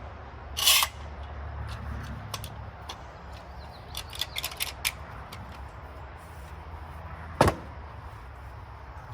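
Handling and work noises: a brief scraping burst near the start, a run of small sharp clicks in the middle and a single sharp knock near the end, over a steady low hum.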